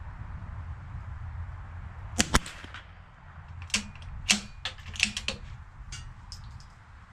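A single sharp shot from a Bergara B14R bolt-action .22 LR rifle firing SK Rifle Match ammunition, a little over two seconds in. It is followed by a series of sharp metallic clicks as the bolt is worked to eject the case and chamber the next round.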